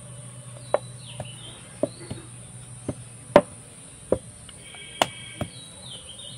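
Wooden rolling pin knocking against a round wooden board as dough is rolled out: about nine sharp clacks at uneven intervals, the loudest about halfway through.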